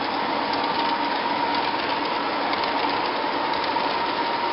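O gauge model freight trains rolling past close by: the steady running rumble and clatter of metal wheels on the track and the locomotives' electric motors, with a steady whine throughout.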